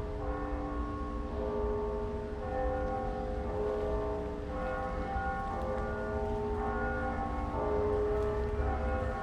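Russian Orthodox monastery church bells ringing: several bells of different pitch struck again and again, their tones overlapping and ringing on, over a steady low rumble.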